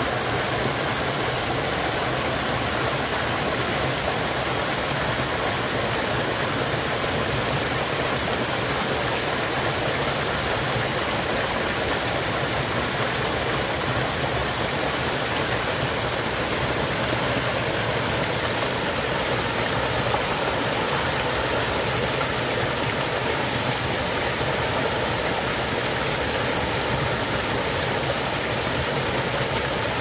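Mountain stream water rushing and splashing over rocks in a small cascade, heard from close by: a steady, even rush with no breaks.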